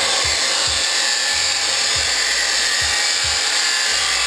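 Abrasive chop saw running and cutting through a length of exhaust pipe, a steady grinding noise, with background music carrying a steady low beat underneath.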